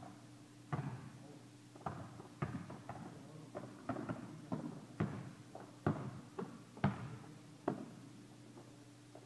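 A basketball dribbled on a hard indoor court: a string of bounces, roughly two a second at an uneven pace, echoing in the gym. A steady low hum runs underneath.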